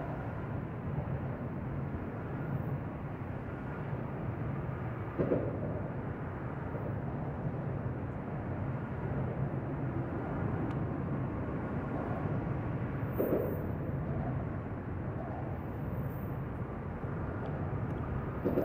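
Norfolk Southern freight train rolling away along the rails, a steady low running noise with a few brief knocks about 5 and 13 seconds in.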